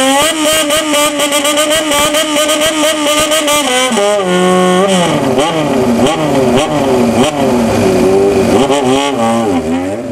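Straight-piped motorcycle engine revved in a rhythmic 'call' with its intake sucking sound. At first it is held high with a fast fluttering pulse; about four seconds in the revs drop, then rise and fall again and again in quick throttle blips. The sound fades out at the end.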